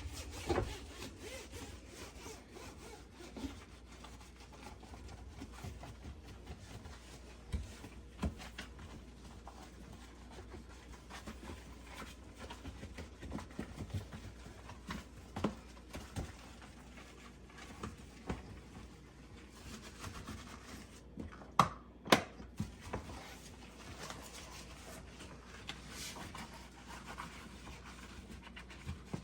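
A soft cloth rubbing and wiping the inside of a dishwasher tub, with scattered light knocks; two sharp knocks come about three-quarters of the way through.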